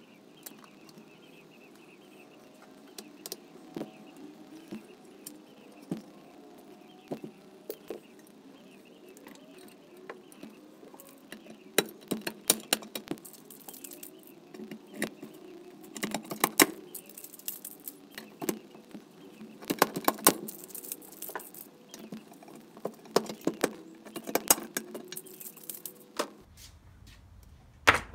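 Light metallic clinks of small parts being handled, then from about twelve seconds in, several clusters of sharp metallic clicks and snaps from a hand pop-rivet tool being squeezed to set pop rivets in a metal mower cowl.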